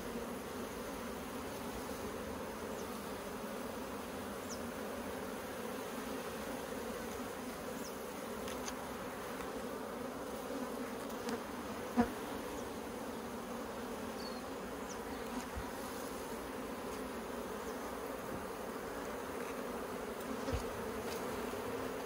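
Honey bees humming steadily, the close buzz of many bees on an open brood frame and hive box. A single sharp knock about halfway through.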